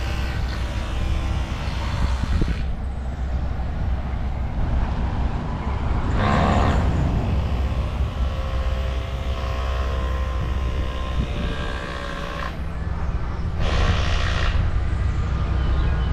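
Motor vehicle engines running and passing over a steady low rumble, with louder passes about six seconds in and again near the end.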